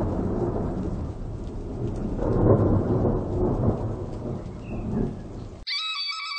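Thunder rumbling in swells over steady rain. About five and a half seconds in it cuts off suddenly, replaced by steady high-pitched tones as music begins.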